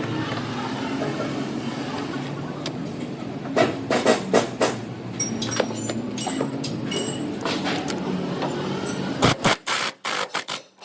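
A car engine running steadily, with sharp knocks and clicks in two clusters, about four seconds in and again near the end.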